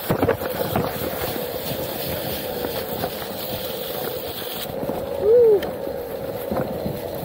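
Onewheel electric hub motor running with a steady whine as the board rolls over a rocky trail, with wind on the microphone and a few knocks from the terrain early on. About five seconds in, a brief tone rises and then falls, the loudest moment.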